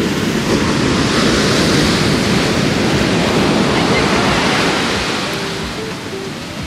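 Ocean surf: a wave breaking and rushing up the shore, the wash of water swelling in the first second and easing off near the end.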